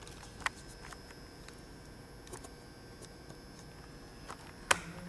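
Quiet room tone broken by a few small clicks and taps, the sharpest one near the end.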